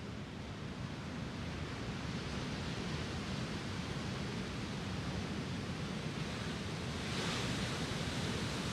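Lake Superior surf washing onto the beach: a steady hiss and rumble of waves. About seven seconds in, the hiss grows louder as a larger set of waves breaks along the shore.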